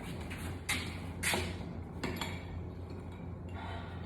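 A few light metal clinks and knocks, with three within the first two seconds or so, as forging tools and steel stock are handled, over a steady low hum.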